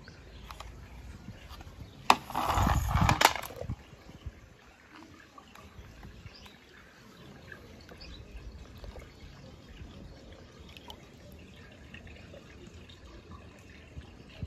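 A toy car splashing into water about two seconds in, a short noisy splash lasting about a second and a half, followed by faint dripping.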